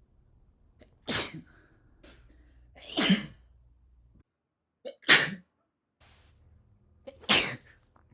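One person sneezing four times, each sneeze a short, sharp burst, about two seconds apart. The sneezes are spliced together, with a moment of dead silence at one of the cuts.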